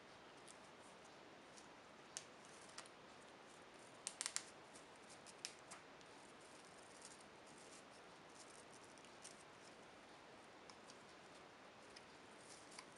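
Faint clicks of a plastic cable tie being pulled tight, scattered sharp ticks with a quick run of three or four about four seconds in, over near silence.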